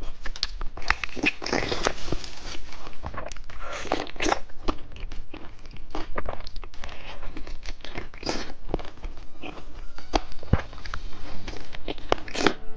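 Plastic candy packaging being opened and handled: irregular crinkling and crackling rustles.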